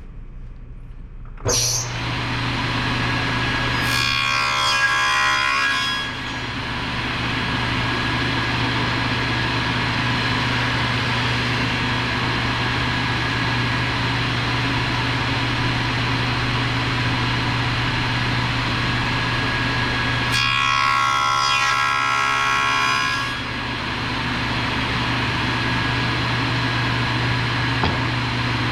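Table saw switched on shortly after the start and running with a steady hum, then cutting through wood twice, for about two seconds each time, about four seconds in and again about twenty seconds in: crosscuts for the shoulders of a tenon.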